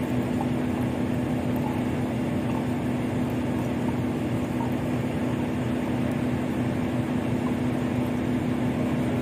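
Steady drone of a steamship's running machinery, with a constant low hum at one pitch and no change in level.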